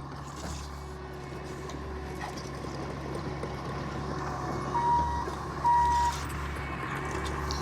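A vehicle's backup alarm beeps twice about five seconds in, two short, loud, steady tones, over the steady low drone of an engine running.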